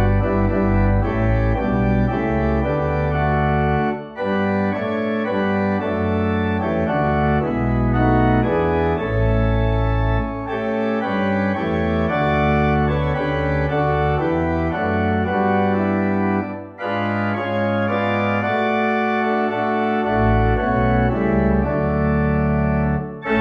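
Organ playing sustained chords in phrases, with short breaks about four seconds in, again around seventeen seconds, and near the end.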